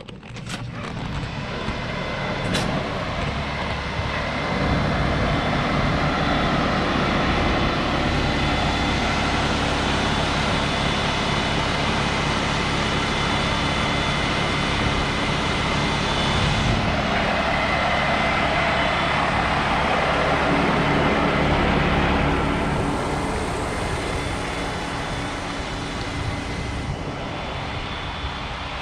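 Heavy construction machinery engine running steadily, getting louder a few seconds in and easing off again near the end.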